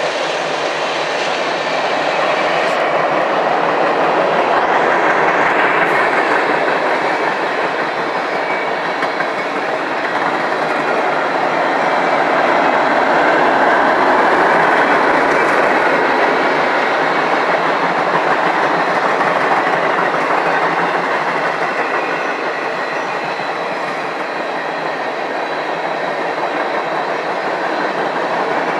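A train's cars rolling past on the rails. The wheel-on-rail noise is steady and loud, swelling and easing gently.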